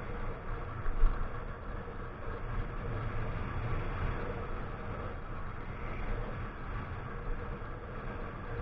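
Motorcycle engine running low and steady while the bike rolls along a road, heard from a helmet camera under heavy wind rumble on the microphone. A single thump comes about a second in.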